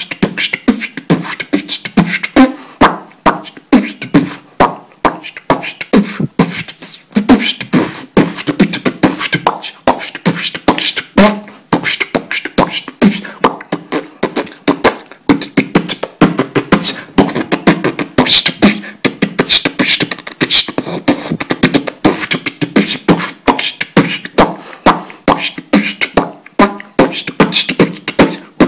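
A man beatboxing: a fast, unbroken run of mouth-made drum hits and clicks in an even rhythm, with pitched vocal sounds mixed in.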